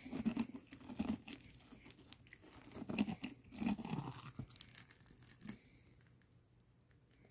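A hand scraping and pulling sprouted seeds and stringy flesh out of the hollow of a cut pumpkin, with wet tearing and crunching in irregular bursts that die away about five and a half seconds in.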